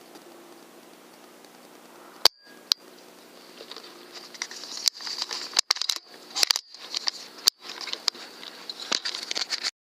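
Rifle-scope recording with a steady electronic hum, a sharp click about two seconds in and a lighter one just after, then a run of close rustling and crackling handling noise on the rifle. The sound cuts off abruptly near the end.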